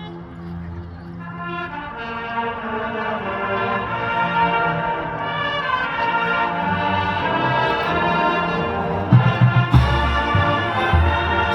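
Orchestral background music led by brass, swelling steadily louder, with heavy drum hits coming in near the end.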